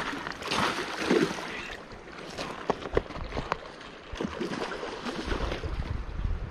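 Shallow river water rushing and a hooked steelhead splashing and swirling at the surface close to the bank, with scattered sharp clicks from handling the rod and reel. A low rumble of wind on the microphone builds near the end.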